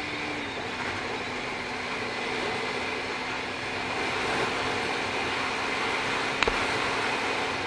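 Bajaj Pulsar NS200 single-cylinder engine humming steadily at highway cruising speed, around 100 km/h, under heavy wind rush on the action camera's built-in microphone. A single sharp click comes about six and a half seconds in.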